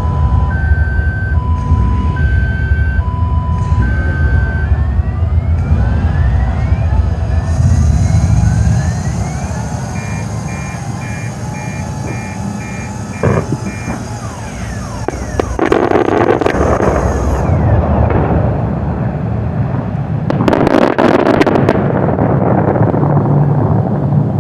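Controlled-demolition sequence at a building implosion: a warning signal alternating between a high and a low tone for the first few seconds, then a short run of rapid beeps, then two bursts of rapid sharp explosive-charge cracks, about 16 and 21 seconds in, over a steady low rumble.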